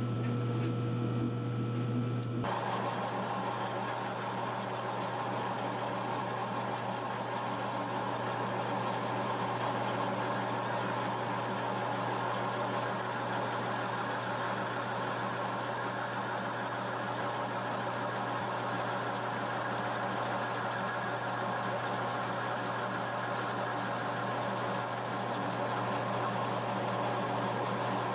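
Metal lathe boring out a turbocharger compressor housing. About two seconds in, the spindle starts turning and the boring bar begins cutting the bore, adding a steady cutting noise with a high-pitched whine over the machine's hum.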